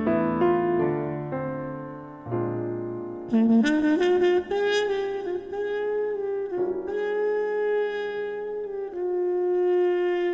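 Background music: a melody of held saxophone or brass notes over piano chords, with long sustained notes in the second half.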